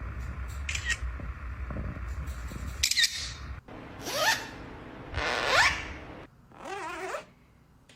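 A parrot giving about four rising, whistle-like calls, each sweeping up in pitch, over a low rumble in the first few seconds.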